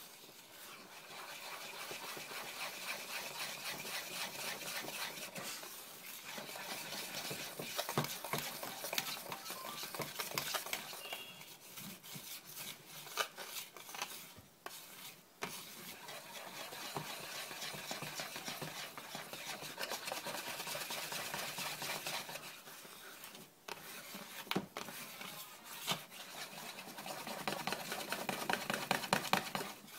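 Wire whisk beating batter in a plastic bowl: fast, steady scraping and tapping strokes, broken by a few short pauses and busier near the end.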